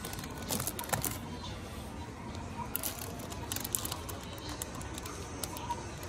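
Plastic-wrapped lunch box being handled: scattered crinkles and light clicks of the film and plastic case. The steady hum of the shop lies beneath.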